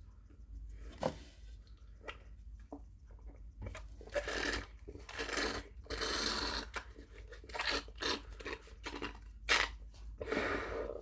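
A couple of sharp clicks, then from about four seconds in repeated crinkling and tearing of a chocolate bar's plastic wrapper being worked open by hand.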